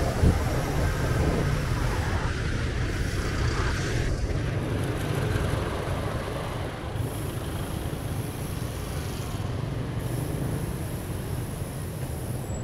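Road traffic noise from a line of slow-moving cars, heard from a bicycle riding close alongside them: a steady low rumble with no distinct events.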